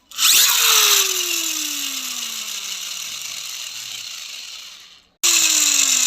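A toy's spinning mechanism whirring and winding down, its pitch falling steadily as it slows and fades over about five seconds, then starting up again briefly near the end.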